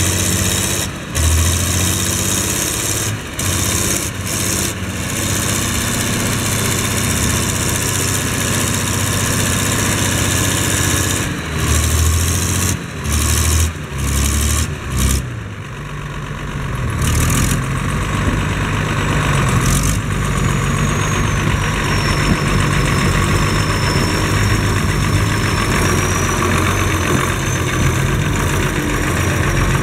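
Massey Ferguson 1102 tractor's diesel engine working, pulling a manure spreader through mud. It surges and drops repeatedly in the first half, then runs steadily, with a faint high whine wavering over it from about two-thirds of the way in.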